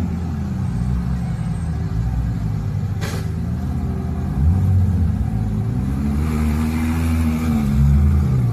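Ferrari supercar engine running and revving, its low note swelling and rising about halfway through as the car pulls in.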